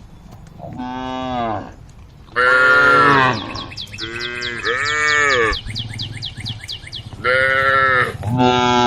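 Cows mooing: about six calls, one after another, each rising and falling in pitch. A fast series of high chirps or ticks runs beneath the calls in the middle.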